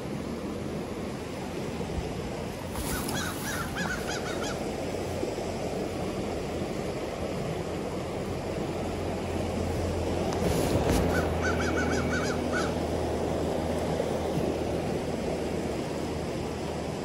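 A mountain river rushing steadily over rocks. A bird calls twice over it, each time in a short run of quick repeated notes, about three seconds in and again around eleven seconds in.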